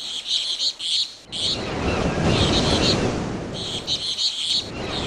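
Birds chirping in repeated clusters of short high notes. About a second in, a steady low rumbling noise joins them and carries on underneath.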